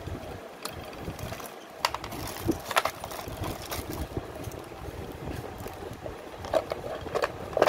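Scattered light clicks and knocks, a few close together about two to three seconds in and again near the end, over a steady low background noise.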